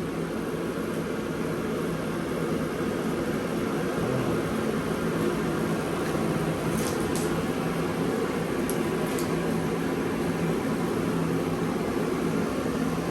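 Steady machine hum, like a running fan, with a few faint ticks around the middle.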